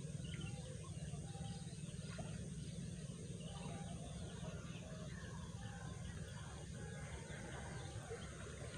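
Scattered short bird chirps and calls over a steady low rumble.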